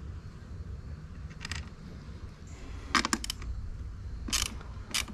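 Metal battery cable ring-terminal lug and hardware clinking against the battery terminal posts as the cable is fitted: a single click about a second and a half in, a quick cluster of clicks around three seconds, and two more near the end, over a low steady rumble.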